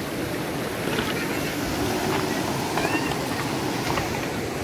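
A fast mountain river rushing over a rocky bed, a steady rush of water.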